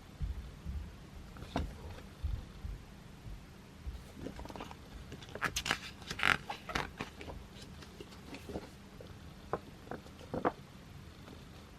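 Pages of an album's photo book being turned and handled: scattered soft taps and paper rustles, with a denser burst of rustling a little past the middle.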